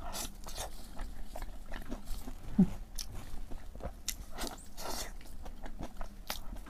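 Biting into and chewing a soft, sticky snow-skin mochi (xue mei niang) filled with cream and pineapple: irregular soft, wet mouth clicks and smacks.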